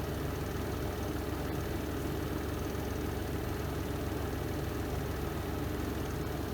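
Renova semi-automatic twin-tub washing machine's spin drum running at speed, a steady, even low hum.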